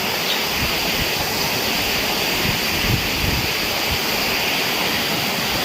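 Steady rush of water falling from a small waterfall.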